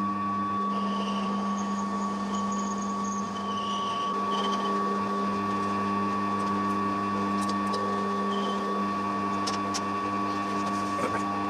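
Workshop machine tool running with a steady motor hum and a constant high whine, with a few faint ticks in the second half; it stops abruptly at the very end.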